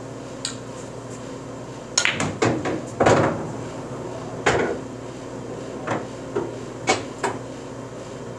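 Pool balls on a Valley coin-op bar table clacking: the cue tip striking the cue ball and balls knocking together. A string of sharp clicks, with a cluster about two seconds in and the loudest about three seconds in.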